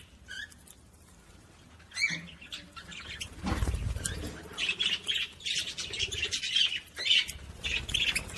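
Small pet cage birds chirping and squawking: a single call about two seconds in, then busy, continuous chirping from partway through. A dull low thud comes as the chirping picks up.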